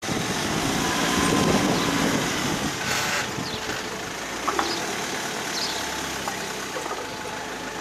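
Engine of a hearse van running at low speed as it drives slowly past, loudest in the first few seconds and then easing off. A short rush of noise comes about three seconds in.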